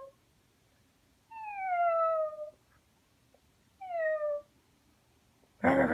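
Puppy whining: two drawn-out cries that fall in pitch, then a short, louder, rougher cry near the end.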